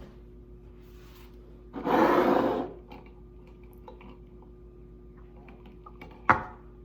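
Handling noise: a loud rustle lasting about a second, then a single sharp knock near the end, over a steady low hum.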